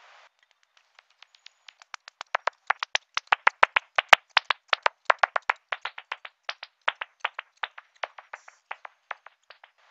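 Bat echolocation calls made audible by an ultrasonic bat detector: a rapid train of dry clicks, several a second, growing louder to a peak about four seconds in and then fading away as the bat passes.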